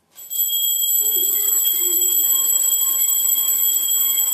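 A steady, high-pitched electronic tone, like an alarm or buzzer, that switches on suddenly about a third of a second in and holds without a break.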